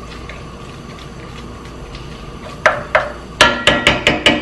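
A wooden spoon knocking against a metal skillet, a quick run of about eight sharp taps with a slight ring starting a little over halfway in.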